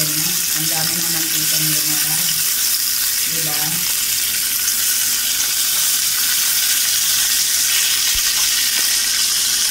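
Pork belly cubes sizzling steadily as they fry in their own rendered fat in an electric skillet with no added oil.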